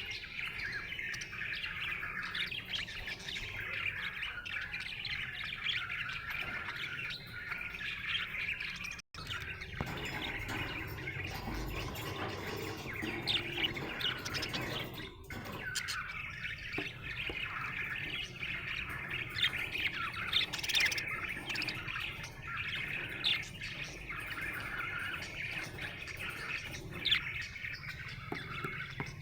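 Budgerigar chirping and warbling in a continuous busy chatter of short notes, breaking off for an instant about nine seconds in.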